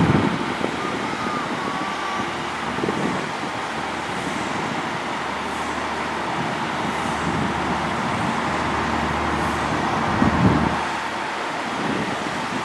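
JR Kyushu KiHa 66/67 diesel railcar idling while stopped at a station platform, a steady low engine hum. Two brief low thumps, one at the start and one about ten seconds in.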